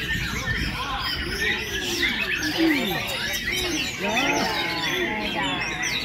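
Many caged songbirds singing at once, a dense tangle of overlapping chirps, whistles and trills with no pause, and people talking underneath.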